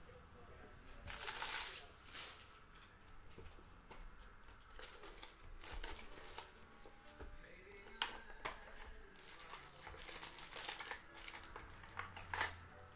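Foil trading-card pack wrappers crinkling and cards being handled, in scattered short rustles; the loudest come about a second in and near the end.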